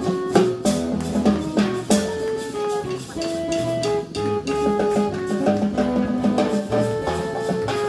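Praise-and-worship band playing music, with drum kit and guitar over held pitched notes.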